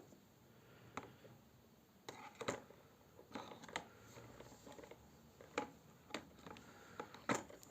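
Light, irregular clicks and taps, about nine in all, of a child handling and tapping at a toy tractor while pretending to repair it.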